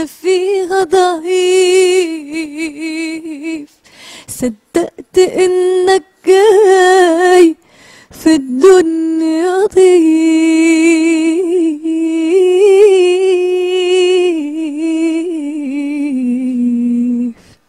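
Unaccompanied solo voice singing long, drawn-out melismatic notes with no clear words, wavering in ornamented turns around one pitch with a few short breaths, then settling onto a lower held note near the end and stopping.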